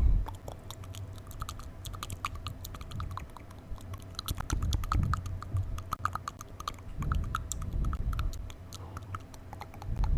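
Close-miked ASMR mouth sounds: rapid wet tongue clicks and lip smacks, many a second, with a few soft low thuds about halfway and again near three-quarters through.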